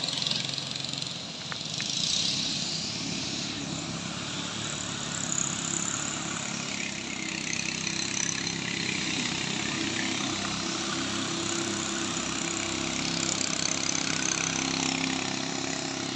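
Small engine of a wooden motor longboat running steadily as the boat pushes upstream, its pitch shifting a little midway, over a steady rushing hiss of river water.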